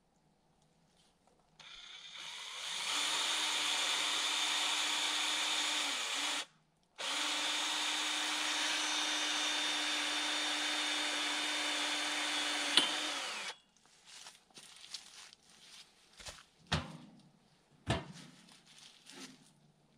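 Power drill drilling holes, running at a steady speed with a high whine in two runs of several seconds with a brief stop between, then winding down. A few light clicks and two sharp knocks follow.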